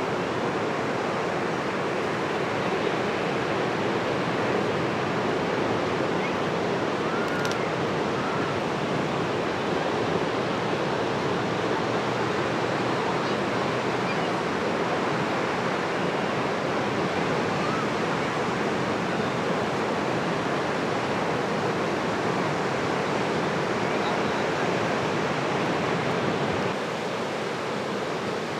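Steady wash of breaking ocean surf.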